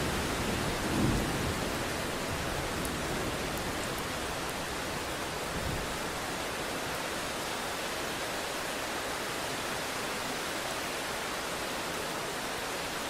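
Heavy rain falling steadily as an even hiss, with a low roll of thunder about a second in.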